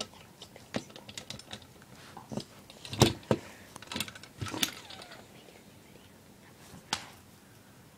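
Irregular light clicks and knocks of small hard objects being handled, with the loudest knock about three seconds in and a last one near the end.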